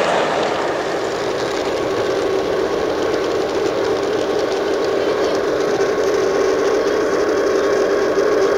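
G-scale model trains running on the layout: a steady electric-motor hum with a constant tone, and wheels rolling on the rails.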